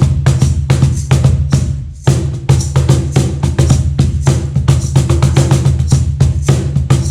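Meinl cajon played in a fast groove, mixing deep bass strokes with sharp slap strokes, several strikes a second, with a short break just before two seconds in.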